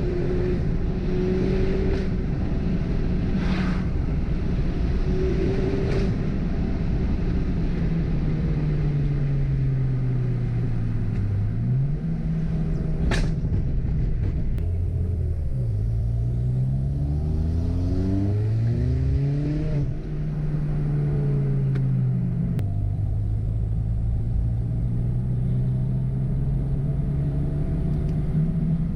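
Ford Fiesta ST's turbocharged engine under way: the revs fall slowly, then climb through a gear, drop sharply at a gear change about 20 seconds in and settle to a steady cruise. A few sharp cracks come through, the loudest about 13 seconds in. The engine is misfiring, which the owner calls too much misfire and means to cure with new spark plugs.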